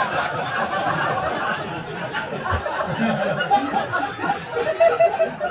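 A live audience laughing at a punchline, many voices at once, the laughter easing slowly.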